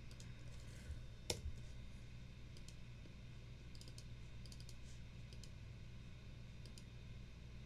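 Faint, scattered clicks of a computer mouse and keyboard, a few short ticks spread across the seconds with the strongest about a second and a half in, over a steady low hum.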